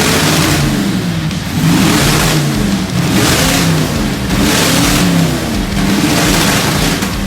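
A car engine being revved up and down over and over, its pitch rising and falling about once a second.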